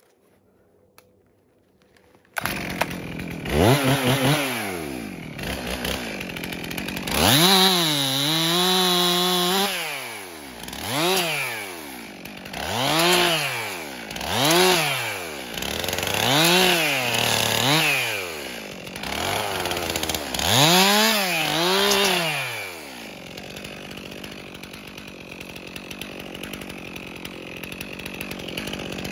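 Two-stroke chainsaw starts about two seconds in, is revved up and down in a series of about seven short bursts while cutting branches from a fallen dead spruce, then settles to a steady idle for the last several seconds.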